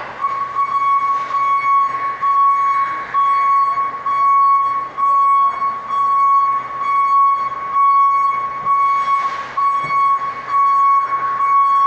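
Electronic alarm or buzzer sounding one high, steady, piercing tone, broken by short dropouts about every half second, with brief rushes of noise now and then.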